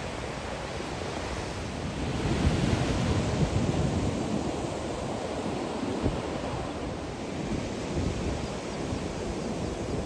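Ocean surf washing on a sandy beach, with wind buffeting the microphone; the wash swells louder about two seconds in.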